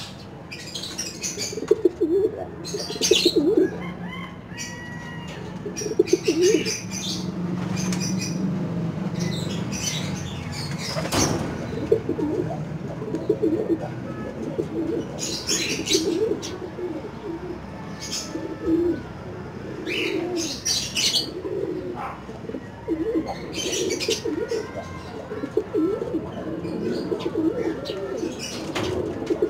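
Racing pigeons cooing over and over, low wavering calls, with short sharp higher-pitched sounds now and then in between.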